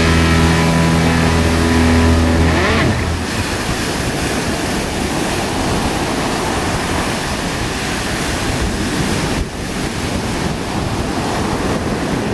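Music ends about three seconds in. After that comes the steady rush of breaking surf with strong wind buffeting the microphone.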